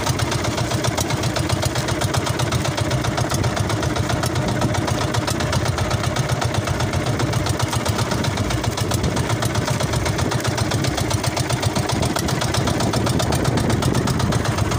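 Small fishing boat's engine running steadily with a fast, even putter.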